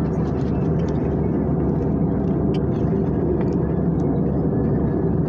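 Steady cabin noise inside an airliner in flight: an even, dense hum of engines and airflow, with a few faint ticks.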